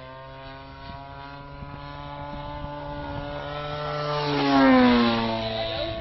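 Model P-40 Warhawk's GT 61cc gasoline engine running at flying speed, growing louder as the plane passes close, loudest a little after four seconds in, with its pitch dropping as it goes by.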